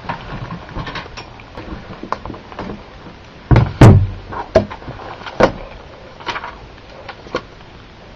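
Handling knocks on a desk as a spiral notebook is set down and handled: two heavy thumps just before halfway, then a few sharper single knocks and clicks about a second apart.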